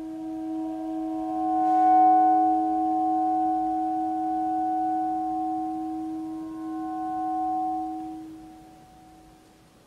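Saxophone playing long, steady held notes layered over each other with the live electronics, several pure-sounding tones sounding at once. A new higher note enters with a brief breathy attack about two seconds in, and the layered tones fade away near the end.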